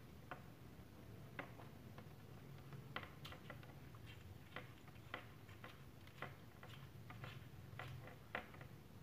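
Small, irregular plastic clicks and taps from handling the Boya BY-M1 lavalier microphone's cylindrical battery housing while it is opened and a battery fitted, over a faint low hum.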